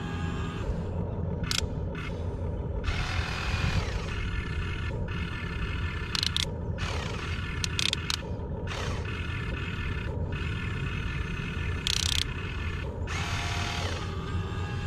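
Huina 1592 RC excavator's electric arm motors whining through their metal gears in repeated short runs as the boom, arm and bucket move, over a steady low rumble.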